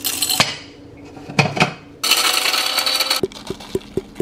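Morning coffee being made: cups and utensils clinking, a machine hissing steadily for about a second near the middle, then light quick taps about four a second.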